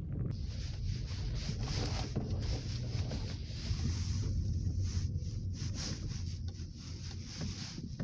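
Car driving on a rough road heard from inside the cabin: a steady low rumble of engine and tyres, with a hiss of road and wind noise that comes in just after the start.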